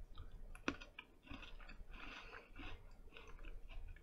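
An Oreo cookie wafer being bitten and chewed: a crisp snap a little under a second in, then irregular crunching.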